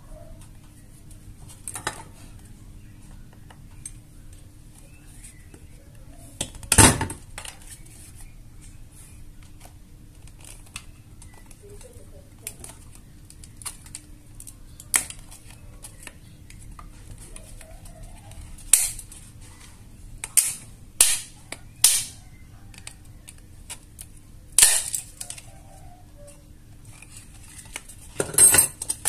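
Sharp clicks and knocks of a tool prying and tapping at a sealed plastic power-adapter case to open it. The strikes come scattered: one loud knock about seven seconds in, then a run of them later on.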